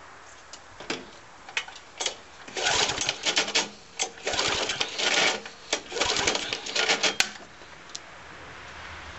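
The 1999 Briggs & Stratton 3.5 hp Classic engine on an old Mountfield Laser lawnmower being pull-started: a few light clicks, then three pulls of the recoil starter cord, each about a second long, cranking the engine over.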